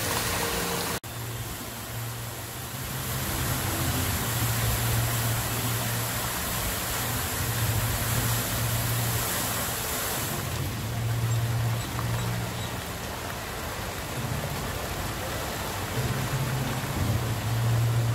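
Canal fountain jets spraying and splashing into the water, a steady rushing hiss, over a low rumble that comes and goes. The sound cuts out briefly about a second in.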